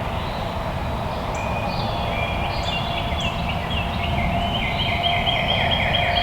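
Songbirds singing fast repeated trills, one long trill near the end, over a steady low rumble.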